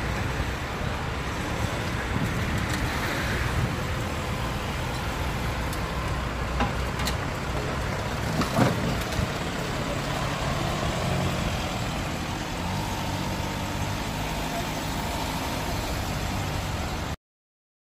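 Vehicle engines running at low revs, a steady low rumble, with a single sharp knock about eight and a half seconds in. The sound cuts off suddenly just before the end.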